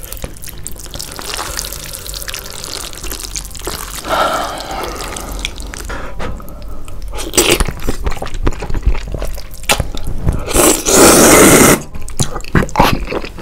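Water splashes as it is poured from a plastic bottle onto a bowl of saucy stir-fried noodles. Wet slurping and chewing of the noodles follows, with many small mouth clicks and one loud slurp near the end.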